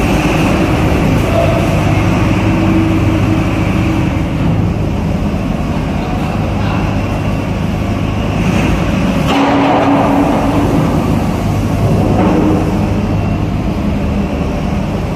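Heavy diesel engine running steadily, its hum echoing in a ship's enclosed vehicle deck, with a slight change in pitch about nine seconds in.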